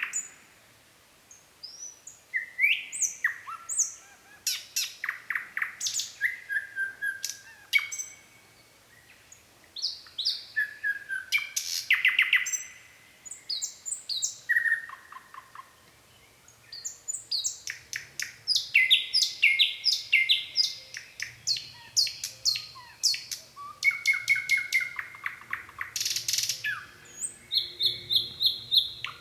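Nightingale singing: a series of varied phrases of rapid repeated notes, clicks and whistles, each a few seconds long and separated by short pauses.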